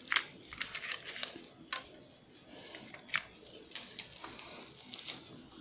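Cardboard box and its packaging insert being handled by hand: scattered light clicks and taps, about eight of them, with soft rustling in between.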